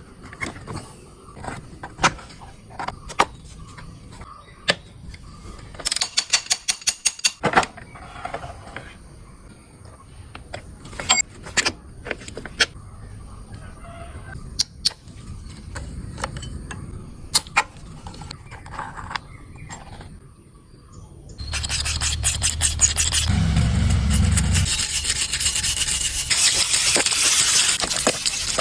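Tool work on a motorcycle: scattered clicks and knocks, with a quick run of about a dozen even ticks early on. About three quarters of the way through, a loud continuous scraping rub starts and keeps going.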